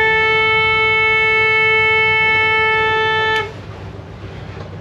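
A sailing catamaran's horn sounding one long, steady blast as a fog signal, so that a nearby vessel knows the boat is there. It cuts off about three and a half seconds in.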